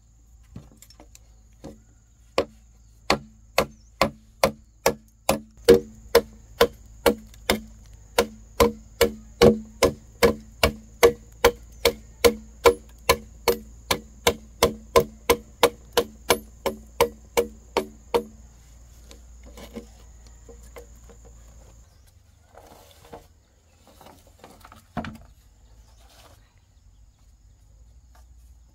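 Rapid, evenly spaced blows struck on bamboo, about two or three a second, each with a hollow ringing tone. They stop abruptly, followed by a few scattered quieter knocks and one sharper knock.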